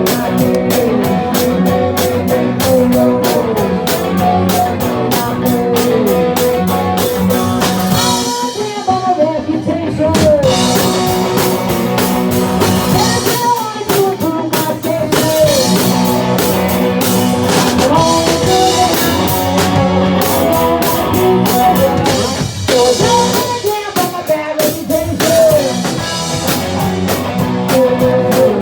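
Live rock band playing a song, with electric guitar over a drum kit and a steady beat.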